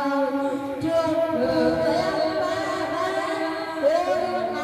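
Solo singing into a handheld microphone: long held notes that waver with vibrato, with short breaks between phrases.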